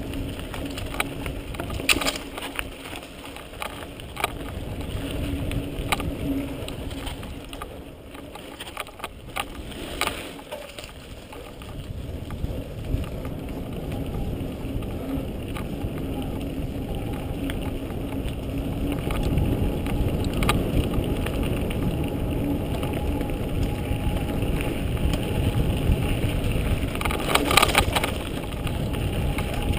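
Mountain bike descending a dirt trail, heard through an action camera's microphone: a steady rush of wind and tyre noise, with rattles and knocks from bumps about two seconds in, around ten seconds in, and in a cluster near the end.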